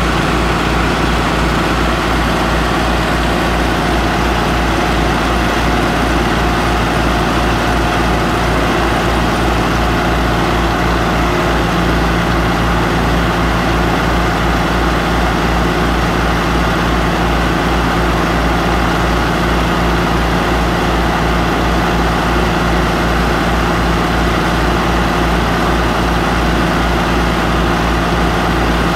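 About 6.5 horsepower Harbor Freight gas engine running steadily under load, driving the belts and counterweighted pulleys of a homemade topsoil screener, with the compact tractor's engine running alongside. A steady pulsing drone that never lets up.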